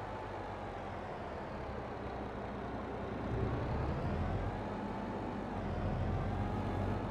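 Truck engine running steadily, with a thin whine that slowly rises and falls.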